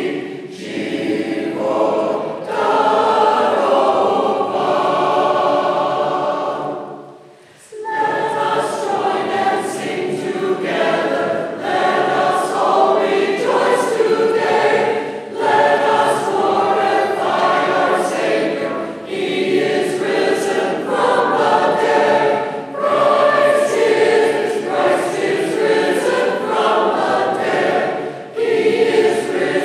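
Church choir singing a Byzantine Catholic Paschal hymn unaccompanied, phrase after phrase, with a brief break about seven seconds in.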